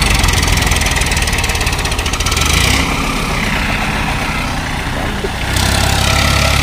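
Farmtrac 45 tractor's three-cylinder diesel engine working under load as it drags a sand-laden trolley out of a soft pit. The engine runs steadily, its note changes about three seconds in, and it grows louder again near the end.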